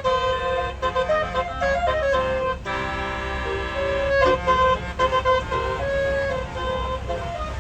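Tour bus's basuri telolet horn playing a melody of quick stepping notes, with a held chord of several tones a little under three seconds in that lasts over a second. A low rumble runs underneath.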